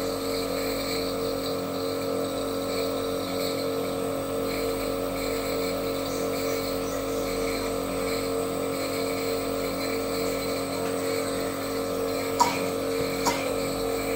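Compressor nebulizer running with a steady, even motor hum. Two short sharp clicks sound about a second apart near the end.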